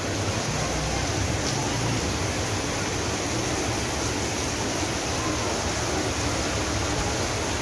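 Heavy rain pouring down steadily, an even rushing hiss of falling water.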